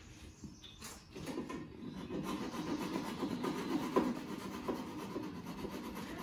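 Hand sawing with a flush-cut dowel saw, whose teeth have no set, rasping through the wooden dowel pins in a window sash joint to trim them flush. The strokes start about a second in, and there is a sharp knock near four seconds.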